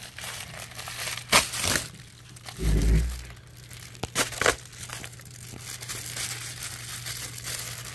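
Plastic Amazon Prime bubble mailer being torn open by hand: sharp tearing and crinkling bursts, then quieter rustling of the plastic. A dull thump about three seconds in.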